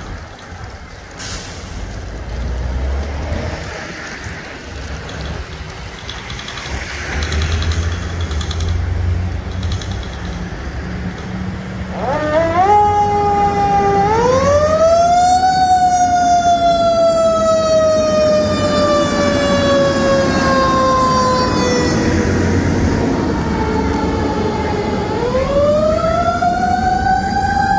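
2010 KME fire engine pulling out with a low engine rumble. About twelve seconds in its siren starts, rising in quick steps to a high wail. It then falls slowly for about ten seconds and winds up again near the end.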